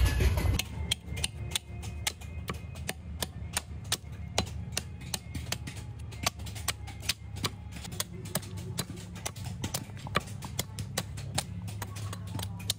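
Heavy knife blade striking a coconut again and again, chipping the hard shell off the white meat: sharp, irregular clicks, several a second, over quiet background music. Coconut water pouring into a strainer cuts off about half a second in.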